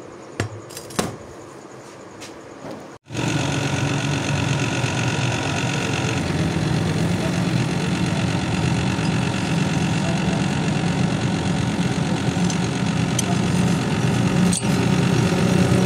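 An electric grinder running steadily, cutting in abruptly about three seconds in after a few light taps and clicks.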